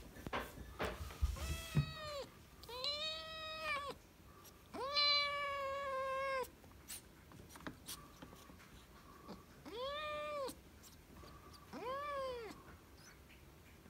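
A kitten meows repeatedly from inside a plastic pet carrier, five meows in all. The longest and loudest comes about five seconds in. A few clicks and knocks sound in the first two seconds.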